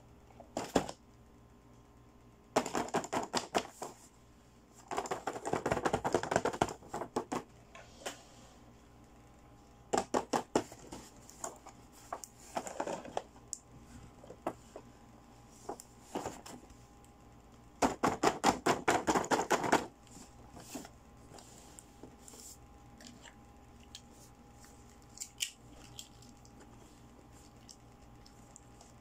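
The plastic packaging of a boxed toy make-up and accessory set being handled: several bursts of rapid crackling and clicking, the longest about two seconds, with scattered single clicks between.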